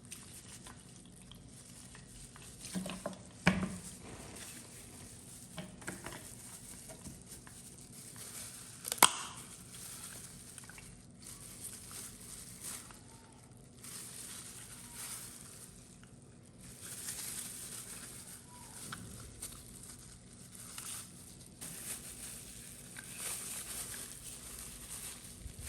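Small handling noises of hand repair work: intermittent scratchy rubbing with scattered light clicks, and two sharper knocks about three and a half and nine seconds in.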